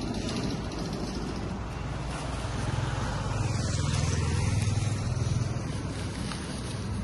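A road vehicle going past, its engine hum swelling to its loudest about four to five seconds in and then easing off.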